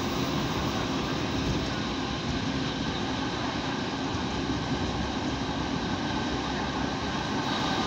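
Fiat ALn 668 diesel railcar under way: a steady running noise of engine drone and wheels on rail.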